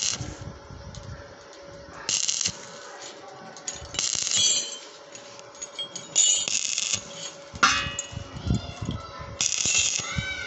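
Stick (arc) welding electrode crackling and hissing in short bursts, about six of them, each around half a second, as the arc is struck and broken again and again on steel. A steady hum runs underneath.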